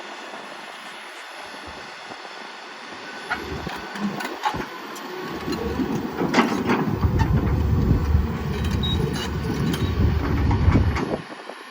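Komatsu PC160LC hydraulic excavator running, with scattered metal clanks. About five seconds in it grows much louder, a deep rumble with many clanks and rattles, and the noise drops off suddenly near the end.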